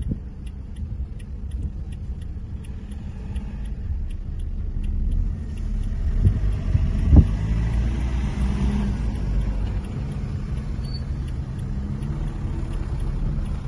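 Car engine and road rumble heard from inside the cabin: a steady low rumble while stopped, then louder as the car pulls away and accelerates, the engine note rising, with a single thump about seven seconds in.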